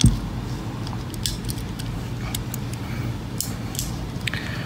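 Scattered light metallic clicks from a Smith & Wesson J-frame revolver's action as the trigger and hammer are drawn back by hand, seating the hammer spring in its groove, over a low steady hum.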